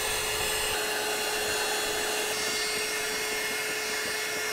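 A small electric fan motor running steadily: an even whirring hiss with a constant hum underneath.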